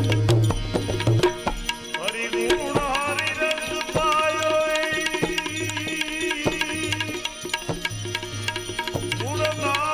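Devotional bhajan music: a tabla keeps a steady beat under a melody of held and gliding notes.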